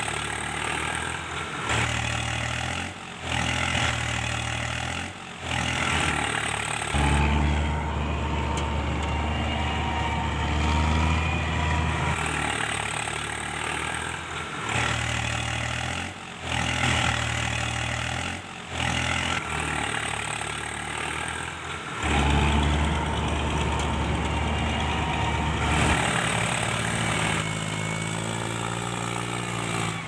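Heavy tractor engine sound running under load, a low rumble that swells and drops with several short breaks.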